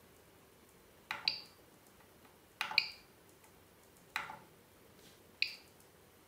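Control knob on an Original Prusa 3D printer's LCD panel pressed four times, about a second and a half apart. Each press is a sharp click with a brief electronic chirp from the panel's buzzer, as the menu is stepped through to start a print from the SD card.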